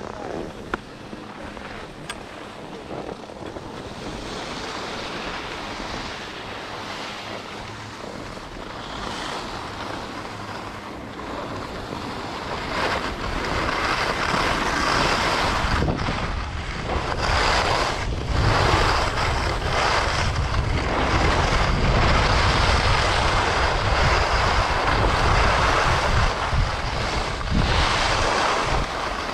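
Skis sliding and scraping over snow with wind buffeting the microphone: a steady rushing hiss and low rumble that gets louder from about halfway through.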